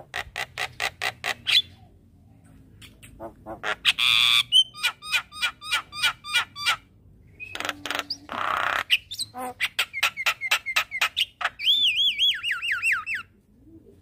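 Javan myna singing: runs of quick, evenly repeated notes broken by harsh squawks about four and eight and a half seconds in, and a wavering whistle that falls in pitch near the end.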